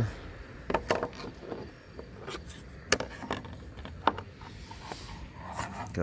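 A scattered series of sharp plastic clicks and knocks as the cover of a car's underhood fuse box is unlatched and lifted.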